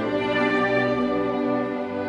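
Symphony orchestra playing held, sustained notes, with the bowed strings (violins and cellos) to the fore.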